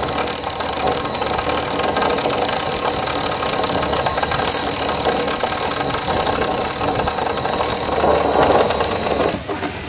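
Cordless drill boring a 3/4-inch hole through a wooden board, the motor running steadily as the bit chews through the wood, with a thin whine; it stops near the end.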